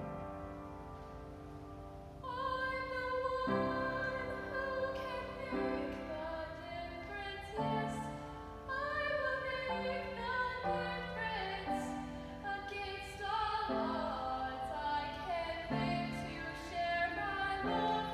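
Youth choir performing with upright piano accompaniment. A piano chord sounds at the start and the voices come in about two seconds later, singing over held piano notes.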